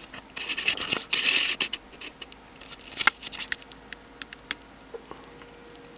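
Rustling and scraping handling noise with scattered light clicks, busiest in the first two seconds and dying away about four and a half seconds in, leaving quiet room tone with a faint steady hum.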